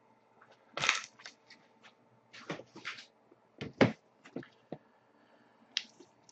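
Trading cards and cardboard boxes being handled and put away on a table: a series of knocks, clicks and short rustles, the sharpest knock near four seconds.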